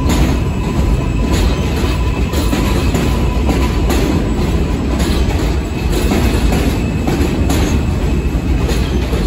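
New York City Subway L train cars running on open-air track: a steady low rumble of wheels on rails, with light clicks over rail joints every second or so.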